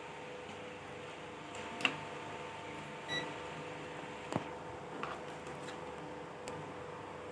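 A few faint clicks and taps of handling at a workbench over a steady electrical hum, with one short faint beep about three seconds in.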